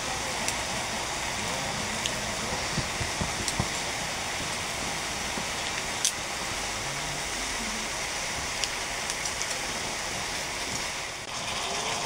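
Pork belly and webfoot octopus stir-fry sizzling steadily in a hot grill pan, with metal tongs and kitchen scissors clicking against the pan now and then, the sharpest click about halfway through.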